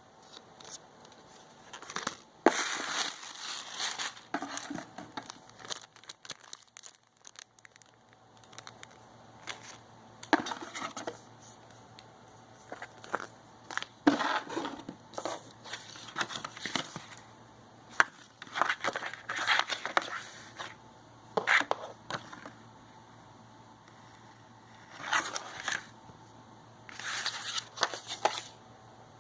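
Packaging being unpacked and handled: irregular bursts of crinkling and rustling, with a few sharp clicks and knocks in between.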